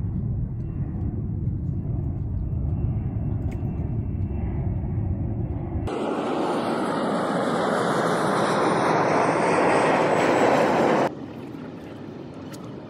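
Aircraft noise. A low rumble gives way, about six seconds in, to a louder rushing noise that swells steadily with a faint falling whine on top, then cuts off abruptly a second or two before the end.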